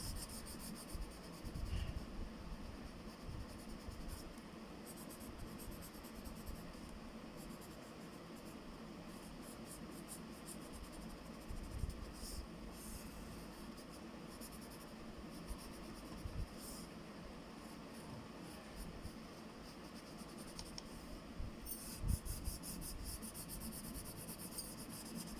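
Faint scratching of a pencil drawing lines and curves on paper, with a denser run of quick strokes near the end.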